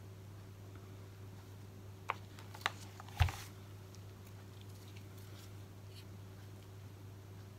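Three light clicks within about a second, the last one loudest with a soft knock, as plastic paint cups and wooden stir sticks are handled and set down. A steady low hum runs underneath.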